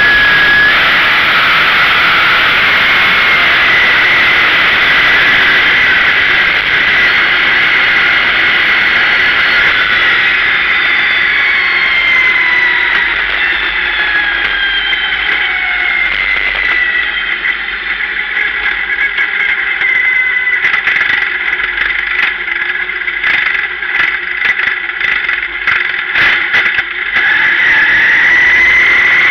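Sportsman dirt-track race car's engine heard from inside the cockpit, loud, with a high steady whine over it. The pitch falls as the car slows, then it runs quieter with a run of rattling clicks before turning loud and steady again near the end.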